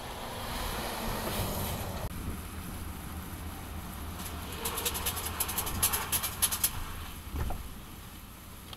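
Articulated truck driving by, a low rumble of tyres and running gear. The sound changes about two seconds in, and from about four to seven seconds a quick run of sharp clicks and rattles sits over the rumble.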